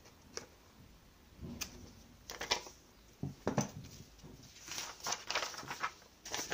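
Scissors snipping small notches into the edge of a paper sewing pattern, several short sharp snips, followed by the paper pattern pieces rustling as they are handled.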